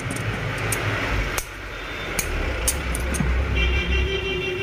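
Steady low rumble with several sharp clicks and taps scattered through, and a pitched tone of several notes held for about a second near the end.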